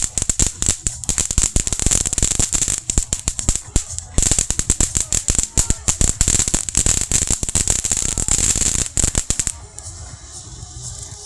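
Fireworks crackling: a dense, rapid run of sharp pops over a steady high hiss. It stops abruptly near the end, leaving quieter music.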